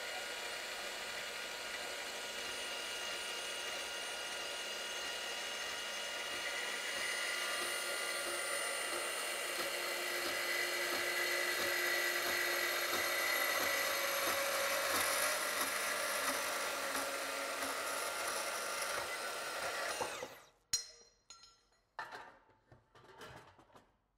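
Milwaukee M18 CBS125 cordless band saw running, its blade cutting through steel Unistrut channel with a steady whine and grating hiss. About twenty seconds in the motor stops and winds down, followed by a few sharp knocks.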